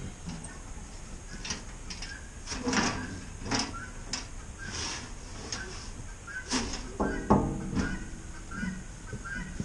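Irregular metal clunks, knocks and scrapes of tractor sheet metal and parts being handled during disassembly, with a cluster of louder knocks and a longer grating scrape a little past the middle.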